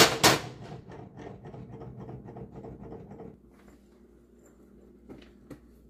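A sharp knock of kitchenware, then a run of small scrapes and clicks that fades out after about three seconds, leaving a faint steady hum.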